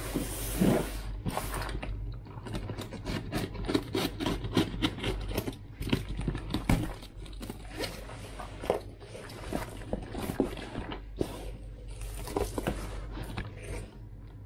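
Box cutter slicing through packing tape and cardboard, and cardboard flaps being pulled open: an uneven run of scrapes, crackles and small clicks.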